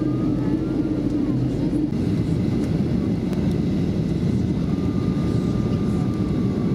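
Boeing 737-400 cabin noise on final approach: a steady, loud rush of airflow and engine sound heard from a window seat over the wing, with the flaps extended. The sound shifts slightly about two seconds in, and a faint high steady whine comes in during the second half.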